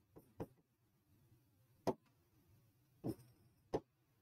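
Marker pen tapping and clicking against the writing board as a word is written: about five short, sharp ticks, spaced irregularly, the loudest about two seconds in.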